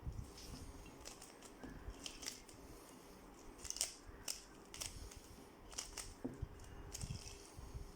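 Rubik's Cube faces being turned by hand in quick succession: irregular plastic clicks and short scrapes, about a dozen turns, as the cross pattern is undone by reversing its algorithm.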